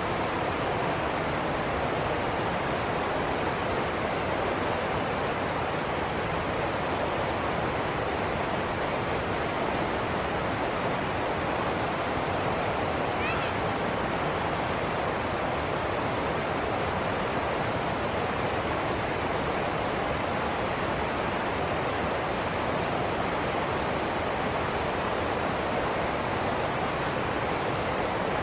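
River water pouring over rocks into small rapids, a steady, even rush of water that holds without a break.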